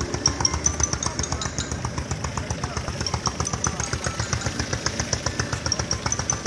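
Outboard motors of rescue boats running on the river, an even rapid chugging of several beats a second.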